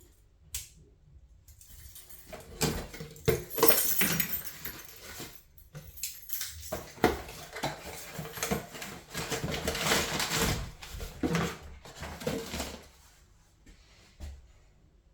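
Metal tools and parts being handled during work on a gas boiler: an irregular run of clinks, clicks, knocks and short scrapes, busiest through the middle and dying away near the end.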